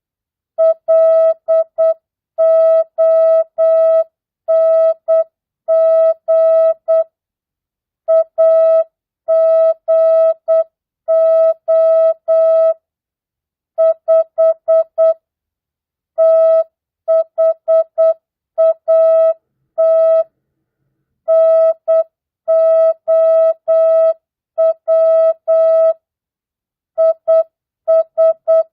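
Morse code (CW) practice tone at 8 words per minute, non-Farnsworth: a single steady beep keyed on and off in dots and dashes. It spells mixed words, numbers and punctuation, with short gaps between letters and longer pauses between words.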